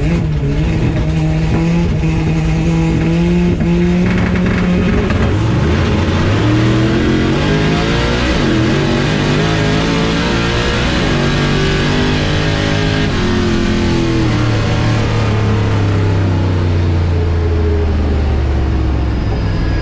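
Ford Maverick's 427 V8 heard from inside the cabin. It is held at steady revs for about five seconds, then revs up through the gears as the car launches down the drag strip, the pitch climbing and breaking at each shift. Over the last few seconds the revs fall steadily as it slows.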